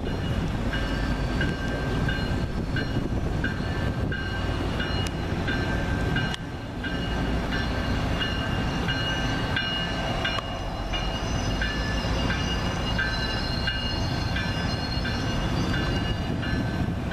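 MBTA commuter train, Rotem cab car 1814 leading with GP40MC locomotive 1115, approaching with a steady low rumble while a bell rings at an even pace of about one and a half strokes a second.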